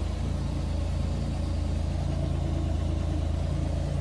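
Polaris Ranger 1500 UTV engine idling steadily.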